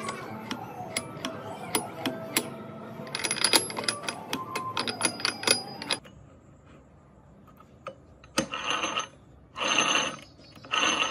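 Metal parts and tools clicking and clinking on an open gearbox, then, after a short lull, the gear train turned by hand through its shaft in short repeated bursts of gears meshing and rattling.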